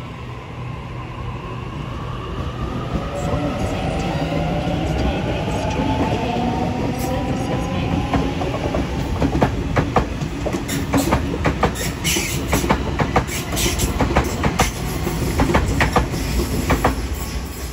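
Sydney Trains Waratah B set electric train pulling away from a platform. Its motors give a rising whine as it gathers speed, then its wheels clack rapidly and irregularly over rail joints and points.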